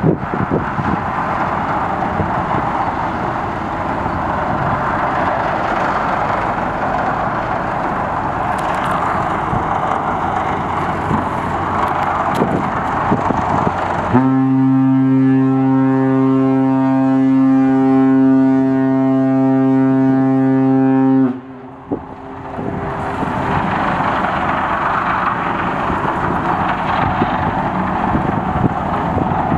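The car ferry Konpira 2's ship's whistle sounds one long, deep, steady blast of about seven seconds, starting about halfway through: the departure signal as the ship leaves its berth. Steady background noise runs before and after the blast.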